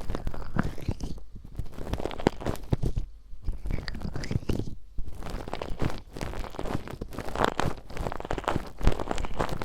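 Ear-cleaning ASMR: ear picks scraping and rustling close on the microphone, a dense scratchy crackle of small clicks. It pauses briefly three times, about one and a half, three and five seconds in.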